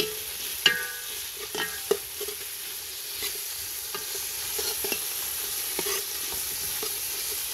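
Metal ladle stirring lemongrass, galangal and chilies frying in oil in a large aluminium pot: a steady sizzle with irregular sharp clinks and scrapes of the ladle against the pot, the loudest about a second in, some ringing briefly.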